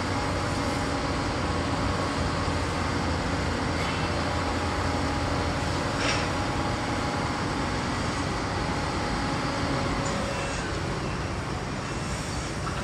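Steady city street noise of passing vehicles, with a low engine hum that eases off near the end and one brief sharp sound about halfway through.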